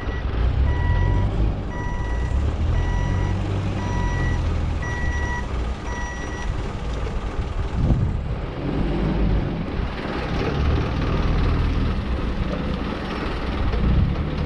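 Forklift reversing alarm beeping about once a second in a single steady tone, stopping about six seconds in. A low engine rumble runs underneath throughout.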